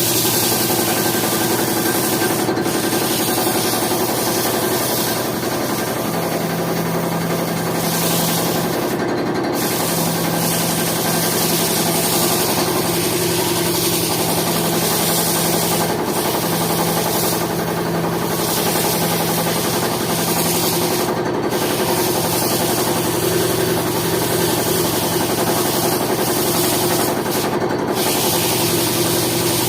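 Electric power tool running steadily while working wood, its motor hum under a rasping, rubbing noise from the wood being shaped or sanded.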